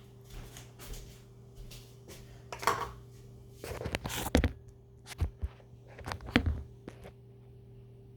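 A cup and slime supplies being handled and set down, giving a handful of separate knocks and thuds, the busiest stretch just before the middle, over a steady low hum.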